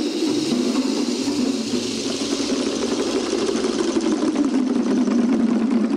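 Sibao bamboo clappers rattling in a fast, continuous tremolo, played by a large group with foot-pressure drums rolling underneath. The ensemble makes one dense, steady clatter with no separate beats.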